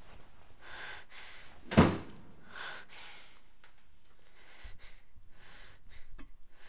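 Soft scuffing footsteps and a single loud thud about two seconds in, then a few faint clicks.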